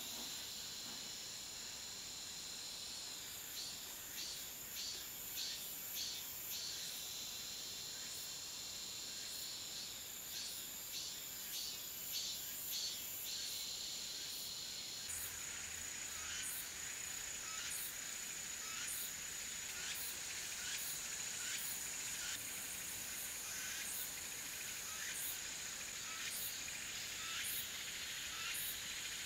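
Chorus of insects: a steady high trill under rhythmic repeated chirps, growing fuller about halfway through.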